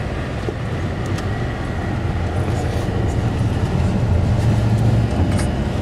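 Steady low engine rumble and hum aboard a ferry under way.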